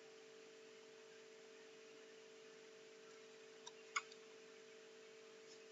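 Near silence: a faint steady hum of room tone, broken about four seconds in by a sharp computer mouse click with a fainter click just before and after it.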